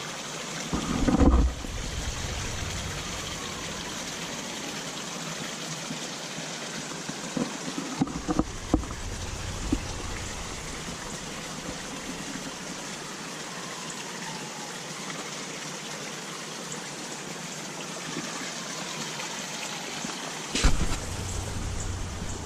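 Steady hiss of running or falling water, with a few short loud knocks about a second in, at the middle and near the end.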